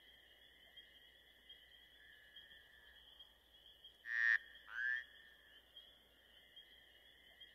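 Steady night chorus of calling animals, a continuous trill in two pitch bands. About four and five seconds in, two short, loud calls ring out over it, each dropping in pitch.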